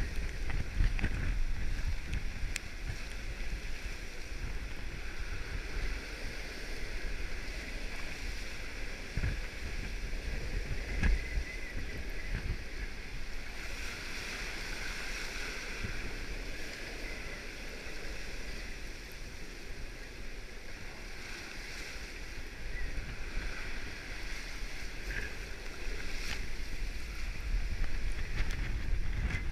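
Strong wind buffeting the microphone in uneven gusts over a steady rush of water along a sailboat's hull in storm conditions.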